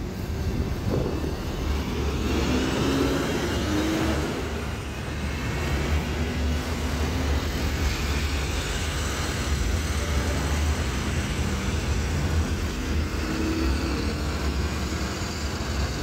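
Double-decker bus engines running close by as buses pull past and move off, a deep steady rumble over general traffic noise. The engine note rises about two to four seconds in and again near the end.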